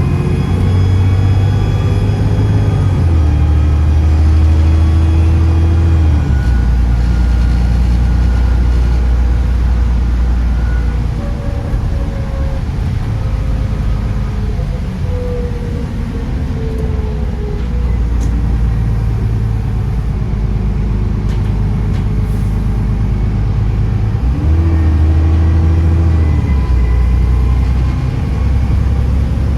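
Bus diesel engine pulling and rising in pitch, dropping back at gear changes a few seconds in, running lower through the middle, and picking up again with another change about 25 seconds in. A thin turbocharger whistle sounds over the engine.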